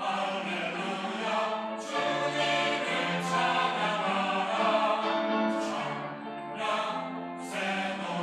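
Church choir singing an anthem, holding sustained chords in phrases of a second or two with short breaks between them.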